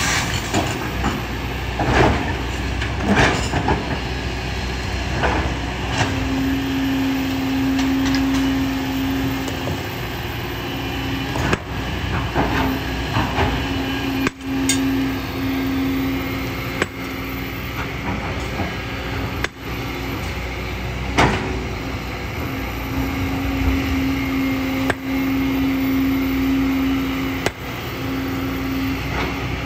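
Kobelco hydraulic excavator working: its diesel engine runs steadily, a steady hum comes and goes three times for several seconds each, and there are a handful of sharp metallic knocks and clanks.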